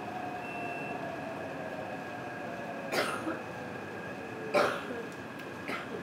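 Taipei Metro train running through the station, a steady rumble with thin electric whines, some gliding slowly down in pitch. Three sharp clacks cut through, about three, four and a half, and five and a half seconds in, the middle one loudest.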